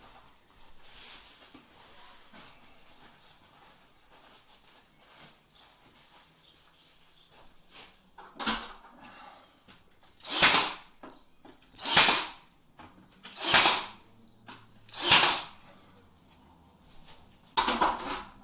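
Cordless pin nailer firing pins into a wooden batten, about six loud short shots: one about eight seconds in, four about a second and a half apart from about ten seconds, and one more near the end.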